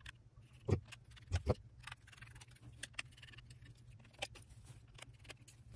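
Small screwdriver working out the screws that hold an Android TV box's circuit board: scattered light metal clicks and ticks, with a few soft knocks from the box being handled, the strongest about a second in.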